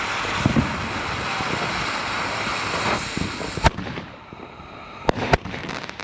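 Gunfighter from Hell consumer firework hissing steadily as it sprays sparks. About two-thirds of the way in, a single sharp bang, then two quick sharp pops near the end as the spray dies down.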